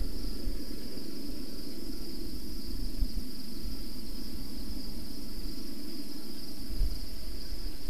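Insects chirring in an unbroken high-pitched drone, over a steady low rumble.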